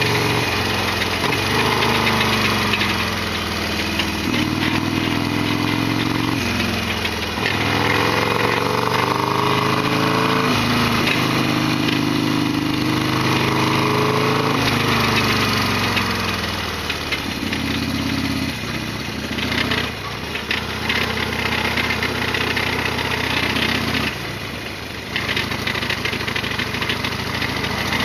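Harley-Davidson Sportster XL1200R's 1200 cc air-cooled V-twin under way. Its pitch rises as it pulls and drops sharply with each gear change, several times over, then it settles into steadier running near the end.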